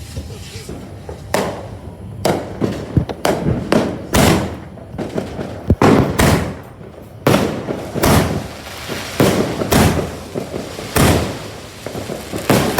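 Fireworks and firecrackers going off in an irregular string of loud bangs, about one or two a second, each trailing off in an echo.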